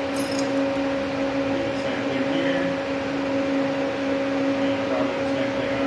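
Steady hum of a running machine with an even hiss behind it, unchanging throughout.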